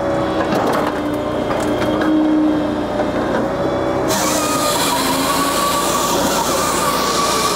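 Japa 395 firewood processor running off a tractor's PTO: a steady engine-and-hydraulic drone, with split ash pieces knocking through the splitter. About four seconds in, a loud high hiss and whine set in as the saw cuts through the next log.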